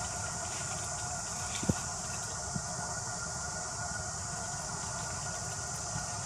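Steady outdoor background of constant high-pitched droning over a low rumble. Two soft low knocks stand out, the louder a little under two seconds in and a fainter one about a second later.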